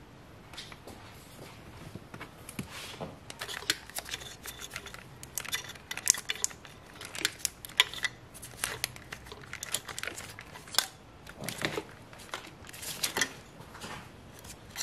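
Irregular plastic clicks and rustling as fuel injector electrical connectors are unplugged and the corrugated plastic wiring loom is handled and pushed aside, with a few sharper snaps among them.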